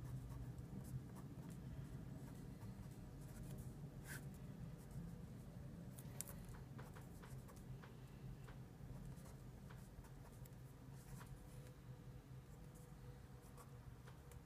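Black Sharpie felt-tip marker writing on paper: faint, irregular scratches and taps of the pen strokes, over a low steady hum.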